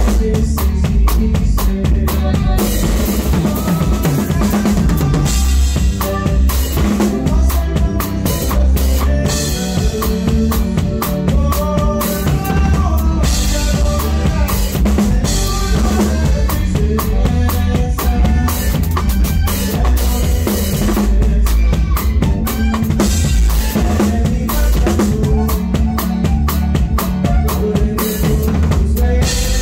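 A band playing a song live, with a drum kit keeping a steady beat on bass drum and snare under a heavy bass line and melody instruments.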